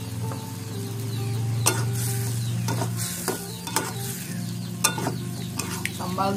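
Metal spatula stirring chili sambal and green onion in a wok of hot oil, with a steady sizzle and several sharp scrapes and knocks of the spatula against the pan.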